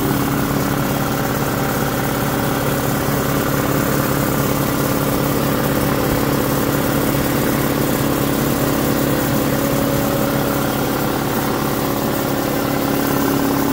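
Husky C304H 30-gallon two-stage air compressor running steadily, its 2 hp electric motor driving the pump to fill the tank, with an even drone. The sound is noisy.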